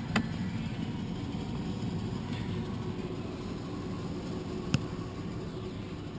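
Plastic door-trim pieces clicking into place on a car door panel: a small click just after the start and one sharp snap near the five-second mark, over a steady low hum.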